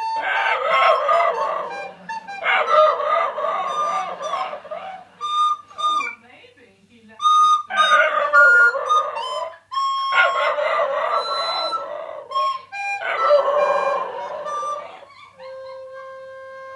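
Cairn terrier howling along to a recorder: a series of wavering howls about two seconds each, with short breaks where clear recorder notes come through. Near the end the dog stops and the recorder holds one long steady note.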